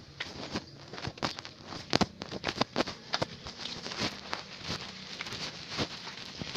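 Footsteps of someone walking in sandals: a run of irregular short taps and clicks, several a second.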